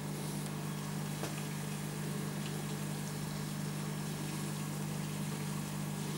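Aquarium filter pump running: a steady low hum with an even hiss of moving water.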